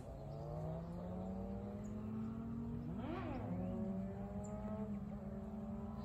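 Motor vehicle engines running on a road, their pitch slowly rising as they accelerate, with a quick rise and fall in pitch about three seconds in.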